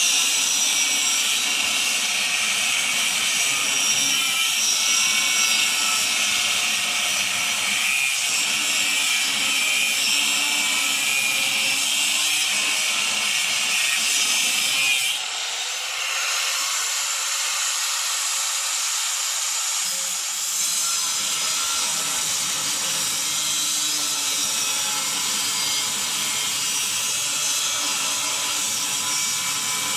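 A handheld power grinder runs steadily against steel with a high, hissing grind. The sound dips briefly about 15 seconds in, then carries on.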